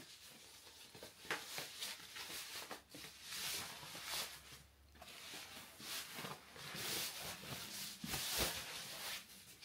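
White tissue paper rustling and crinkling in a series of irregular swishes as a handbag is handled and unwrapped from it.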